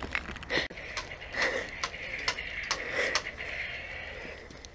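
Footsteps on pavement: a run of light, irregular taps and clicks, a few a second.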